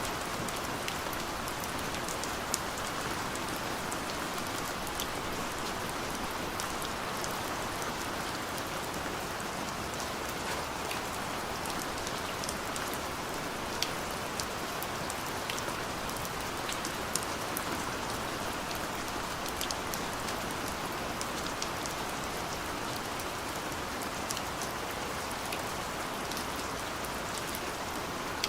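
Steady rain falling, an even hiss with many small drop ticks and a few sharper, louder drop hits.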